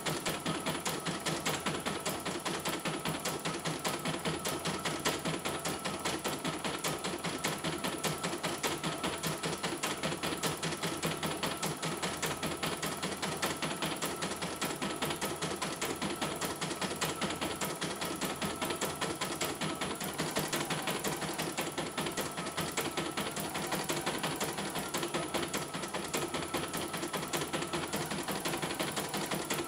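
CNY E900 portable computerised embroidery machine stitching out a design, its needle going up and down in rapid, even strokes with a faint steady whine underneath.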